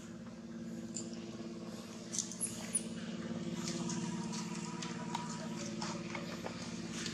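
Dry leaf litter rustling and crackling in short clicks as macaques move and handle each other on the ground, growing busier about halfway through, over a steady low hum.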